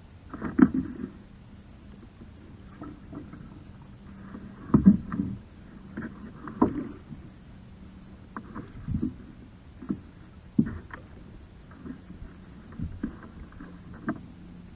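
Kayak paddling: the paddle dipping and splashing in the water and knocking against the hull in irregular strokes every second or two.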